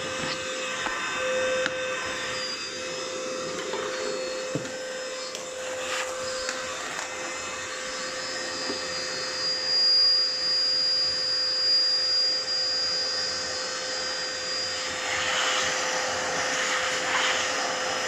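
Parkside cordless wet-and-dry vacuum running with its suction hose whistling: a steady whine throughout, joined by a higher thin whistle from about eight to fourteen seconds in. The owner traces the whistle to airflow through the hose. Near the end the sound turns into a broader rush of air as a hand covers the nozzle.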